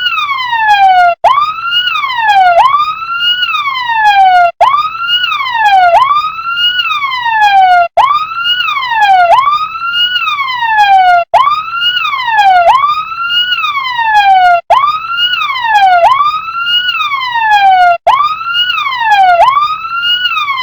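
Toy RC fire truck's electronic siren wailing. Each cycle has two sweeps, a quick rise in pitch and then a slower fall, and each cycle ends in a brief cut-out before the pattern repeats, about every three and a half seconds.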